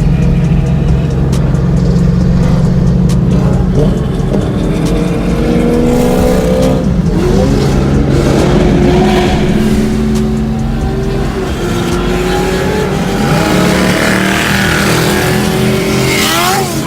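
Car engines: a deep steady rumble, then engines revving and accelerating, their pitch gliding up and down several times, with one sharp drop and climb in pitch near the end.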